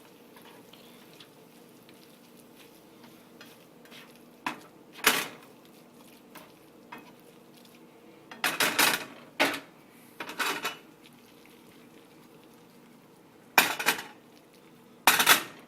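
A cooking utensil scraping and clattering against a frying pan while stirring eggs and ramen noodles together, in short strokes of a second or less, grouped in clusters, over a faint steady hum.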